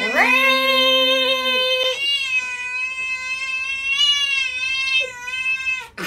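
Silver tabby cat yowling in long, drawn-out meows: a first call of about two seconds, then a longer one of nearly four seconds, held at a fairly steady pitch with a slight waver.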